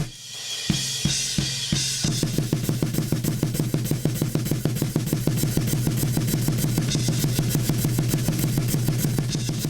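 Recorded drum kit playing. A cymbal crash opens it, a few separate drum hits follow, and about two seconds in a fast, steady drumming pattern starts with rapid bass drum strokes under snare and cymbals.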